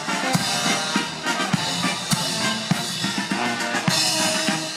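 Military marching band playing on the march: bass drum and snare beating a steady beat, about one stroke every 0.6 seconds, under brass with sousaphones.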